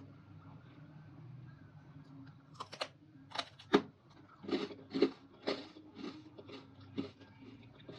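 Crunchy dried fruit or vegetable pieces bitten and chewed close to the microphone. After a quiet start, a few sharp snapping bites come, the loudest about four seconds in, then a run of crunchy chews about twice a second that fades near the end.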